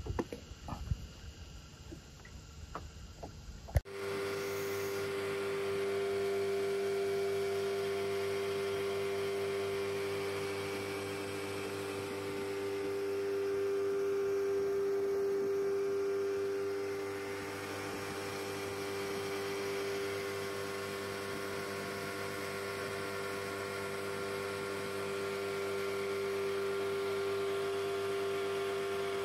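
Outboard motor of a small boat running steadily under way: an even hum that holds one steady pitch. It comes in suddenly a few seconds in, after a few faint taps.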